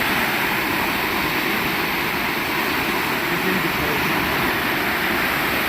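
Floodwater rushing past in a steady, unbroken wash of noise.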